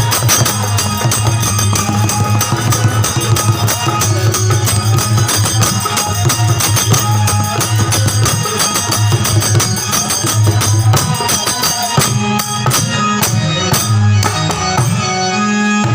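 Instrumental accompaniment of a folk wedding song: quick, busy drum and tambourine-like percussion over sustained melodic tones. The percussion thins out over the last few seconds while the held tones carry on.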